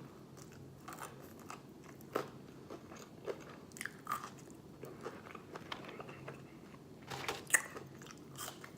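Fried chicken being eaten close to the microphone: scattered crisp crunches of the breaded skin and chewing, with a louder cluster of crunches near the end.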